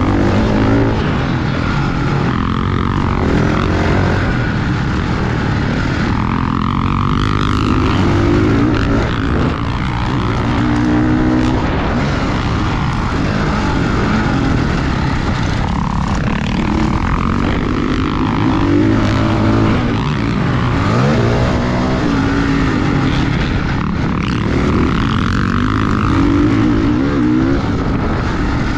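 Motocross dirt bike engine revving up and falling back over and over as the bike accelerates and shifts around the track.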